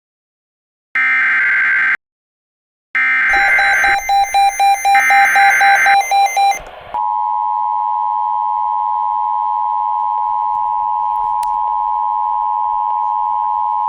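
Emergency Alert System SAME header: three one-second bursts of warbling digital data tones about a second apart, with a fast beeping pattern over the second and third. About seven seconds in, the steady two-tone EAS attention signal begins and holds. Together they announce a severe thunderstorm warning.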